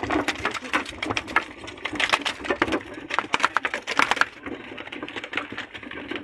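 Rapid, irregular tapping and knocking of a freshly caught fish thrashing on a boat's deck.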